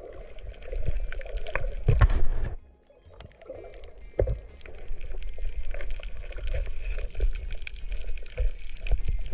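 Underwater sound picked up by a diver's camera: a low rumble of water moving against the camera with many sharp clicks and crackles throughout, dropping away briefly about three seconds in.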